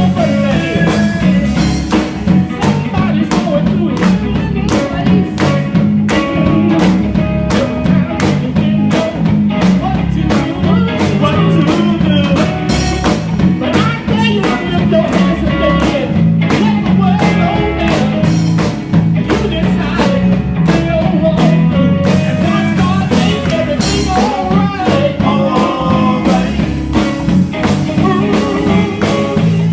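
Gospel band playing at a steady beat, with electric guitar, bass and drum kit in a bluesy groove.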